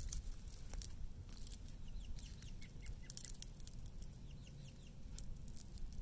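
Wood frogs calling from a breeding pool: a chorus of short, rapid calls, thickest through the middle of the stretch, with scattered sharp clicks.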